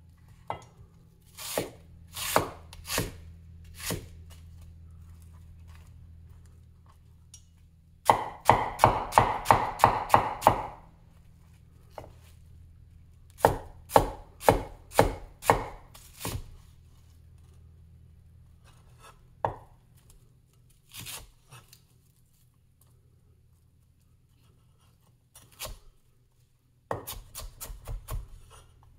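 Big vintage Chinese cleaver chopping red onion on a wooden cutting board: sharp knocks of the blade striking the board in bursts. The fastest runs come about a third of the way in and again near the end, at about five strokes a second.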